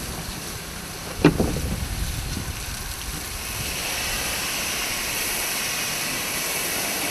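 Steady rushing, hissing noise of firefighting at a burnt-out boat, with one sharp knock about a second in. From about halfway the hiss grows a little louder and higher.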